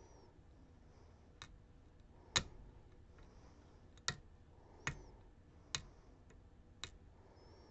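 Sharp metallic clicks, about six at irregular intervals, as a pick works the pins of a Ruko DP2 lock under tension while one pin is still hung up.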